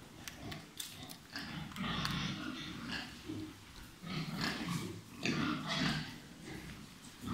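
Pigs grunting in irregular rough bursts, loudest about two seconds in and again from about four to six seconds in.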